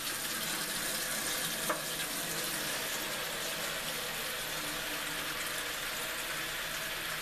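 Tap water running steadily into a disposable aluminium foil pan in a sink, filling it to a shallow depth.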